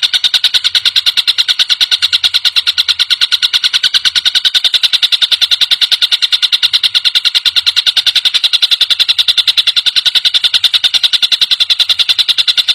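Tengkek buto, a kingfisher, calling in a rapid unbroken rattle of short, sharp notes, about ten a second.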